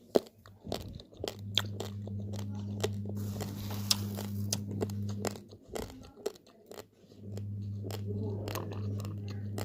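Raw basmati rice grains crunched between the teeth: sharp, irregular cracks with chewing, over a steady low hum that drops out twice.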